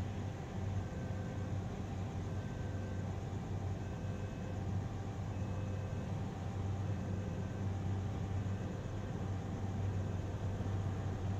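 Steady low diesel hum from a stopped passenger train, its engines idling while it waits at a station.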